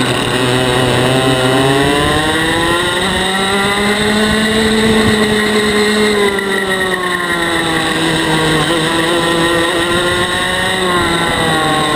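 125cc TAG two-stroke kart engine at racing speed, heard on board. The revs dip at the start, climb to a peak about five seconds in, fall off, climb again and drop near the end.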